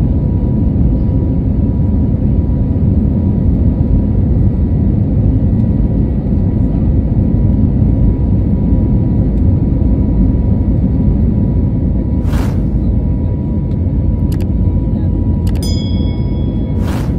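Passenger jet cabin noise as the plane lands and rolls along the runway: a loud, steady low rumble. Near the end come a few short sharp clicks and a brief ding.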